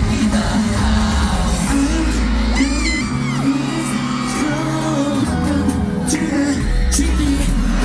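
Live K-pop concert performance: a pop song with vocals over a beat, with crowd yells and whoops. The deep bass drops out for a few seconds midway and comes back near the end.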